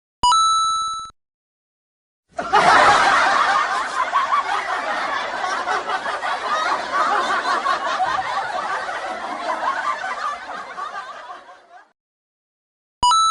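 A short ringing tone, then about nine seconds of many people laughing together, tapering off before it stops; another short ringing tone comes near the end.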